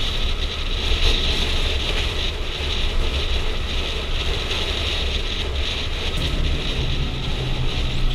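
Kawasaki motorcycle engine running steadily under way, with wind rushing over the helmet-mounted microphone.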